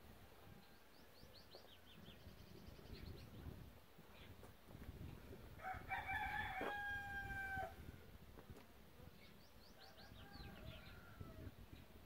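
A rooster crows once, about halfway through, in one call of about two seconds that ends on a long held note. Small birds chirp in quick runs of high notes before and after it.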